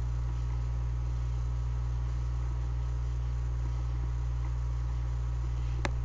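Steady low electrical hum, like mains hum in the recording, with one brief click near the end.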